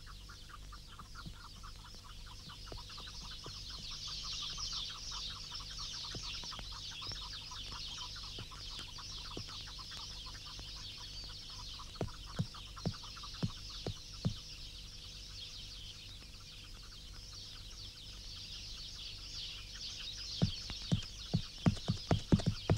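Wild desert soundtrack: a continuous high chirring with rapid fine ticking, broken by short runs of sharp clucking clicks about halfway through and again near the end.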